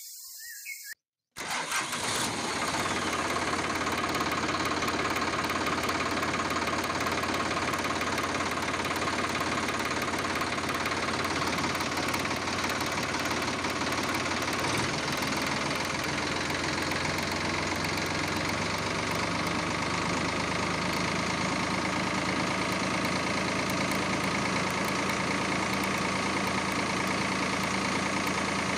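Tractor engine starting about a second in, after a brief silence, then running steadily at a low even note that shifts slightly about halfway.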